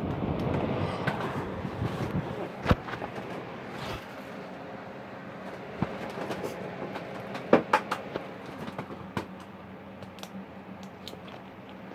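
Rustling handling noise with scattered clicks and knocks over a steady low hum, two louder knocks coming about three seconds in and about seven and a half seconds in.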